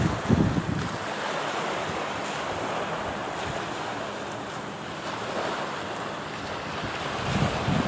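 Small waves washing onto a shell-and-pebble beach, a steady hiss of surf, with wind buffeting the microphone at the start and again near the end.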